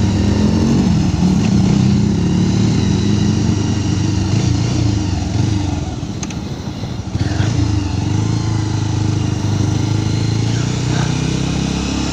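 Motorcycle engine running steadily while riding, under a constant rush of wind and road noise. The engine note dips briefly about six seconds in, then picks up again.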